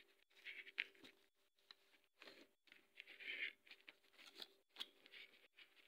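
Scottish fold kitten clawing and biting at a cover, making faint, irregular bursts of rustling and scratching.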